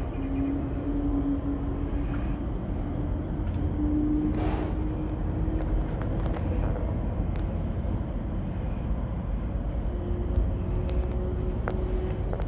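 Steady low rumble inside a moving cable car cabin, with a faint hum that rises slightly in pitch and a single light knock about four and a half seconds in.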